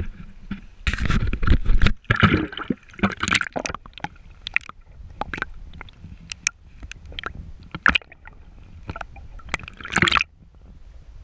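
Water splashing and gurgling around a camera dipped into the sea, loudest about a second in. Then come muffled underwater bubbling and scattered clicks, with another splash near the end.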